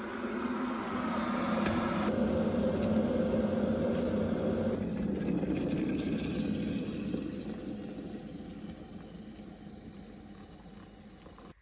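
A steady rumbling hiss from a kitchen appliance heating a drink swells up over the first couple of seconds, then fades over the last few seconds while hot water is poured into a mug, and cuts off abruptly at the end.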